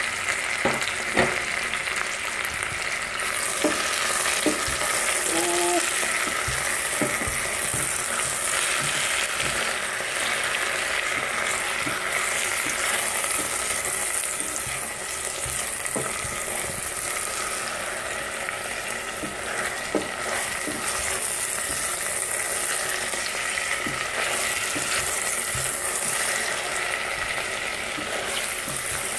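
Onion and green pepper sizzling in hot oil with fried eggplant cubes in a stainless steel pot, a steady frying hiss. A silicone spatula stirs them, with scattered clicks against the pot, most often in the first few seconds.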